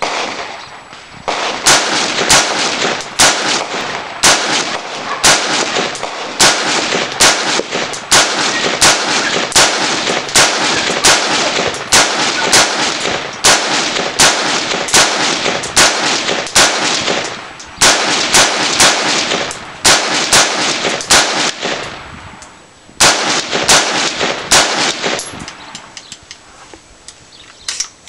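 AR-15-style carbine (M4) firing a long string of rapid semi-automatic shots, about two a second, echoing under the range roof. There are two short pauses in the string, and the firing stops a few seconds before the end.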